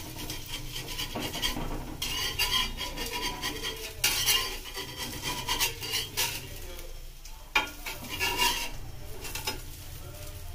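A steel spatula scrapes and clinks against a cast-iron dosa tawa as it slides under small pullattu dosas to lift and turn them. Light sizzling of the batter frying in oil runs underneath.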